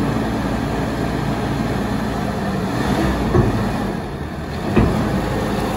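Barford 10-tonne swivel dumper's diesel engine running steadily as its hydraulic skip is lowered, with two short knocks, the sharper one near the end.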